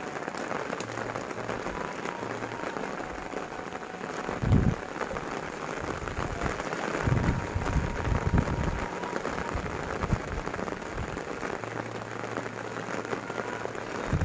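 Heavy rain falling steadily on paddy fields, trees and roofs, a dense even hiss. Low rumbles rise through it a little after four seconds and again around seven to eight seconds in.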